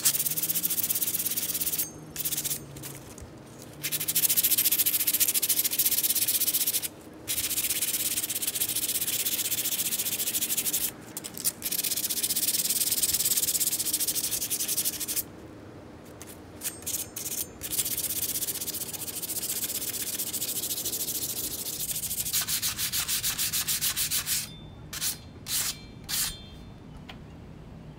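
Dremel rotary tool sanding rust off the metal of an old shovel. Its motor hums steadily while the abrasive scours in long stretches broken by short lifts. The motor stops about two-thirds of the way through, and a few short touches of sanding come near the end.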